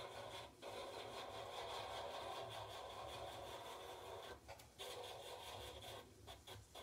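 Cordless nail drill with a metal sanding bit running at low speed against a dip-powder nail, giving a faint continuous grinding that breaks off briefly a few times.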